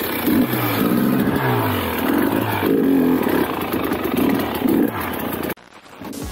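KTM dirt bike engine revving, its pitch rising and falling several times. The engine sound cuts off sharply near the end and gives way to a short burst of TV-static hiss.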